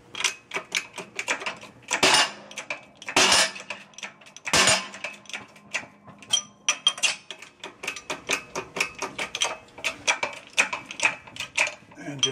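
Hand-pumped hydraulic shop press working, with rapid metallic clicking and clattering on each pump stroke and a few heavier clanks in the first five seconds, as it presses a tapered roller bearing onto a Ford 9-inch pinion shaft.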